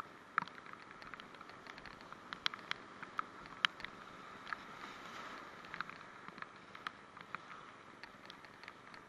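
Whitewater rapid rushing steadily, with frequent sharp ticks and taps of water and spray hitting the kayak-mounted camera.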